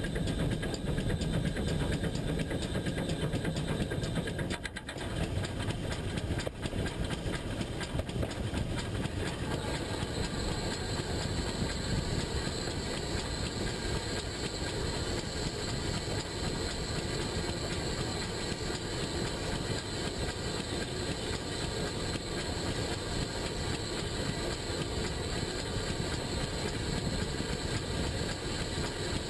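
Pannier tank steam locomotive running along the line, heard from a camera fixed to its front: a steady rumble of wheels on the rails, with a brief drop in level about five seconds in.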